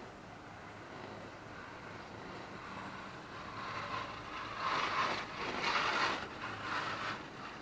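Chairlift in motion, a riding chair's sound: a steady low hum under a rushing noise that swells into several louder surges in the second half.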